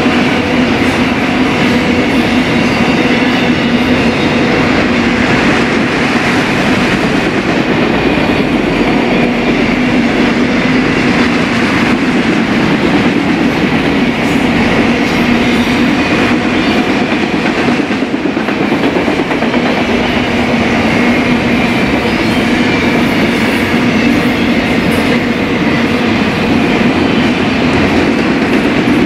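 BNSF freight train rolling past at speed: a loud, steady rumble of steel wheels on rail with clickety-clack and a constant hum.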